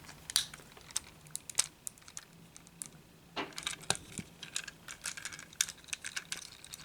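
Small plastic clicks and light taps of a Transformers action figure's hinges and parts being bent and handled during its transformation. The clicks are scattered at first and come thicker and faster about halfway through.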